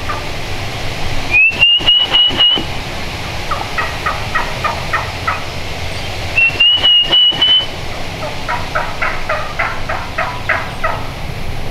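Wild turkey hen giving assembly yelps, the long run of yelps a hen uses to gather her poults: two series of short notes at about four to five a second, the second series longer. Twice, between the series, a single high whistle rises briefly and then holds steady for about a second.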